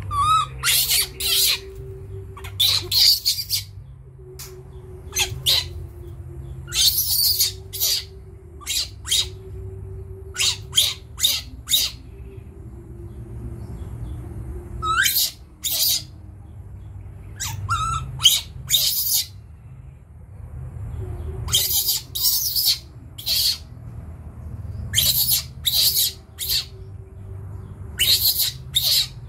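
A baby macaque squealing in short, high-pitched screeches, in clusters of two to four every few seconds, a frightened reaction to the young puppies beside it.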